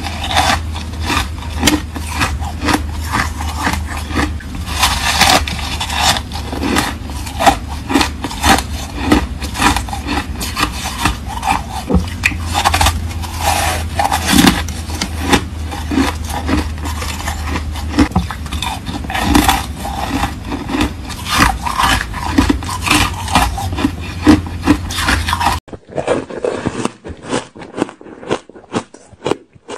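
Hard ice chunk bitten and chewed close to the microphones: a dense, uneven run of sharp crunches and crackles, over a steady low hum. About 26 s in the sound changes to sparser, duller crunches.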